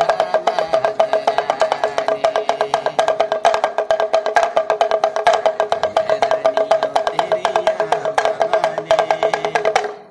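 Damru, the small two-headed pellet drum of a street monkey-show handler, rattled in a fast, even run of pitched taps about ten to the second. It stops abruptly near the end.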